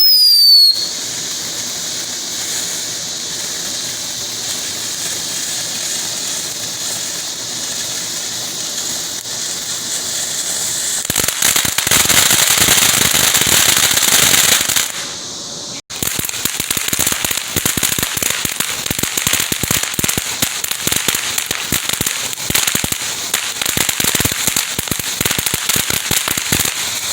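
Backyard consumer fireworks: a short whistle, then a long steady high hiss that grows louder about eleven seconds in and cuts off near sixteen seconds. This is followed by a dense, rapid crackling that keeps going.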